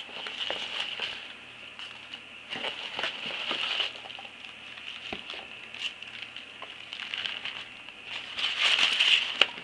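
Packaging being handled: rustling and crinkling with small clicks, loudest near the end, where a sharp click stands out.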